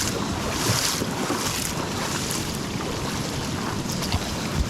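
Steady rush of fast-flowing river water, even and unbroken, with a few faint clicks.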